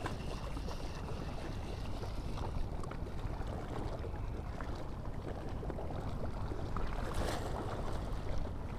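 Steady low rumble of wind buffeting the microphone, with a brief rustle about seven seconds in.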